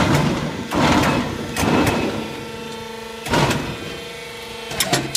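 CNC steel bar straightening and cutting machine running, with a steady motor hum. Over it come five loud, sudden clanks that each die away quickly, at uneven gaps of about one to two seconds.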